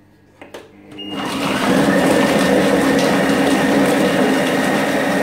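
ThermoCook TC Pro M 2.0 kitchen machine running its chopping blade at speed 6 through a bowl of raw vegetables. Two short clicks, then about a second in the motor spins up quickly to a steady loud whir that holds to the end.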